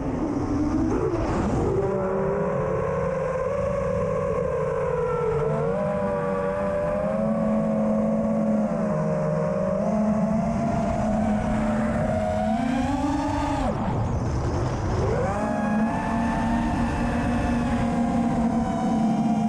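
FPV quadcopter's brushless motors and propellers whining, several pitches gliding up and down together with the throttle. The pitch drops sharply right at the start and again about 14 seconds in, each time climbing back as throttle comes back on.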